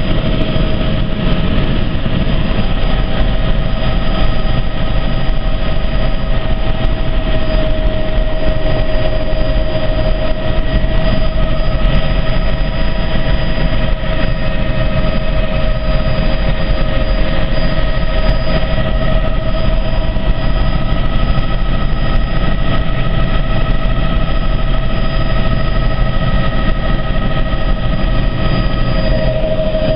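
Helicopter in flight heard from inside the cabin: a loud, steady drone of engine and rotor with a steady high whine over it.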